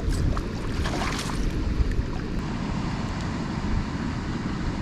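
Wind buffeting the microphone in a steady low rumble, with a few brief splashes in the first second or so from a fish thrashing in ankle-deep water as it is landed.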